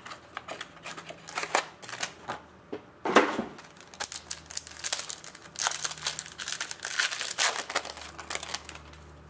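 Baseball card packs and cards being handled: a wrapper crinkling and tearing and cards sliding and shuffling, with a louder rustle about three seconds in.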